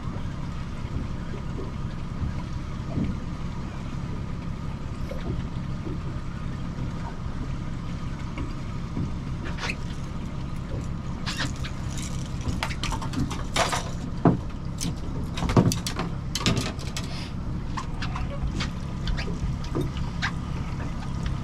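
Boat outboard motor running steadily at trolling speed, a low, even drone. In the middle stretch, a cluster of sharp knocks and splashes rises over it.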